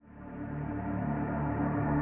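Ambient music fading in from silence: low held tones that swell and grow brighter.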